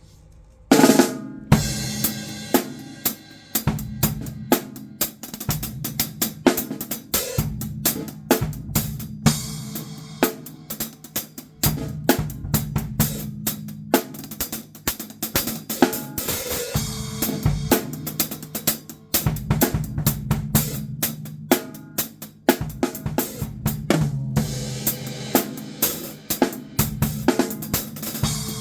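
Drum kit played in a solo: a busy run of quick hits on drums and cymbals, opening with a loud crash about a second in.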